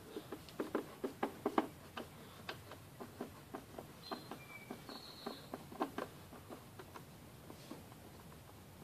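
Phillips screwdriver working out the screws that hold a Lawn-Boy mower's fuel tank top: a string of irregular light clicks and ticks, several a second, thinning out after about six seconds, with two brief high squeaks about four seconds in.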